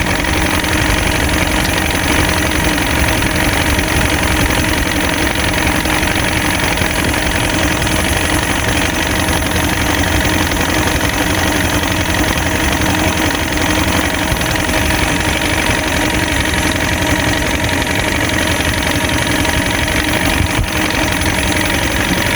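Small fishing boat's gasoline motor running steadily, with no change in pitch.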